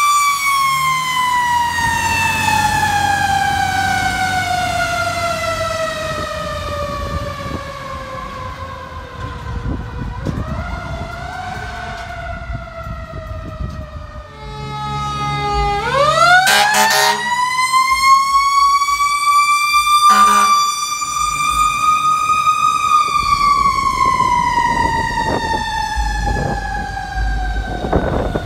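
Fire truck's mechanical siren (Federal Q type) winding down slowly from its peak over about ten seconds, with the truck's engine rumbling underneath. About halfway through a siren spins up quickly to a peak and then coasts slowly down again.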